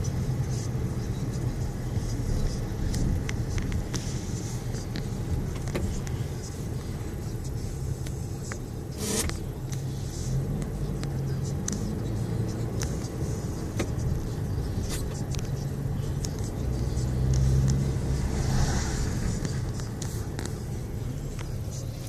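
Car interior while driving: steady low engine and road rumble, with scattered small clicks and a short swell of hiss late on.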